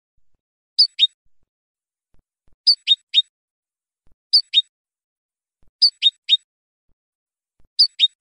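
European goldfinch giving a short, sharp call of two or three quick high notes, repeated five times at regular intervals about a second and a half apart.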